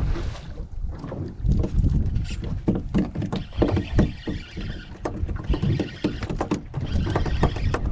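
Wind and sea water against a small fishing boat, a steady low rumble, with irregular knocks and clicks throughout.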